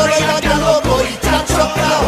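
Pop dance music with a steady, heavy bass beat and a sung melody over it.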